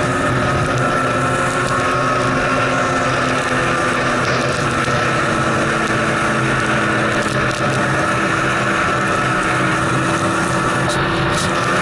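Snowmobile engine running steadily at an even pitch, heard from the rider's seat while riding along a snow trail.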